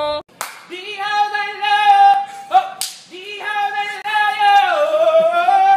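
A high voice singing long held notes, the second sliding down and back up near the end, with two sharp smacks about two and a half seconds apart.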